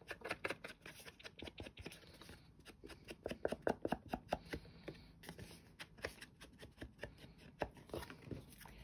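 Soft, quick scuffing strokes of an ink applicator rubbed and dabbed along the edges of card stock to ink them. The strokes come in irregular runs and are busiest around the middle.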